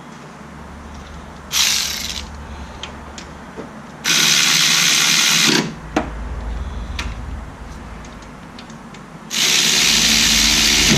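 A handheld power tool runs in three bursts: a short one of about half a second, then two of about a second and a half each. It is tightening hardware while the rear brake is being reassembled.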